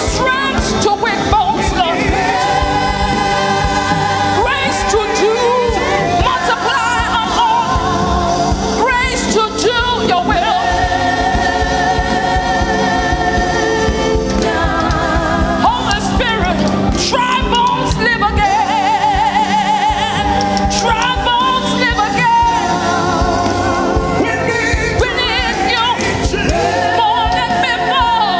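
Gospel worship singing by a choir over instrumental accompaniment, with long notes held with a wavering vibrato.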